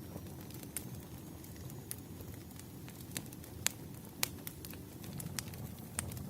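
Wood fire crackling: irregular sharp pops and snaps over a low steady rumble of burning logs, with the loudest pops a little past halfway.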